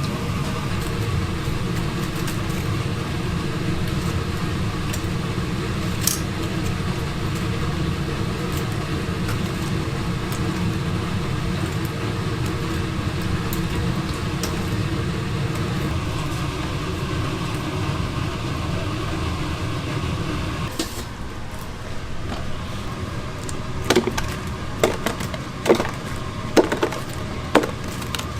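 Steady kitchen equipment hum with a noisy wash that drops away about three quarters of the way in. Near the end come a series of sharp knocks about once a second, a knife chopping on a cutting board.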